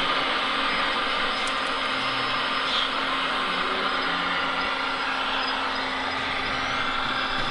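Radio-controlled Liebherr R 946 model excavator working on its hydraulics: a steady whirring and buzzing of the electric hydraulic pump and motors as it dumps a bucket of soil into a model tipper truck and swings round.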